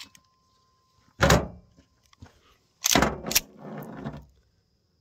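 Rock Island Armory TAC Ultra 10mm 1911 pistol misfiring: a click as the hammer falls on a Fiocchi round that doesn't go off (a primer strike), then sharp metallic clacks and a rattle as the slide is worked by hand to clear the dud round.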